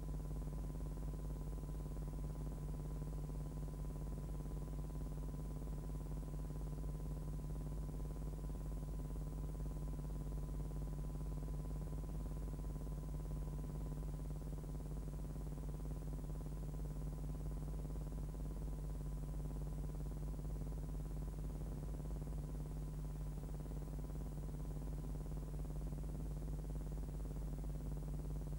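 Steady low electrical hum with a faint high tone above it, unchanging throughout and with no other sound.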